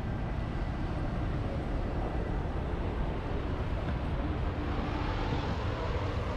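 City traffic on a cobbled square: an open-top double-decker tour bus drives past close by with its engine running, motor scooters among the traffic. The noise grows brighter past the middle as the bus goes by.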